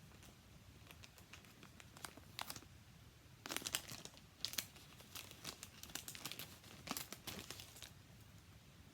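Packaging crinkling as it is handled and opened: a run of crackly rustles for several seconds after a few small clicks.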